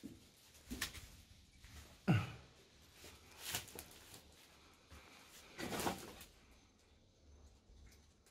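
A handful of footsteps and scuffs with camera handling noise in a small, bare room, the loudest about two seconds in and a longer scrape near six seconds.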